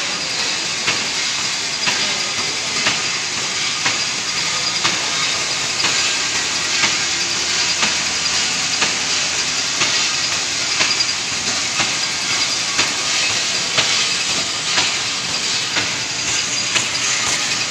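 Roll-to-sheet paper cutting machine running, cutting a paper web off the roll into sheets: a steady mechanical clatter and hiss with a sharp click about once a second.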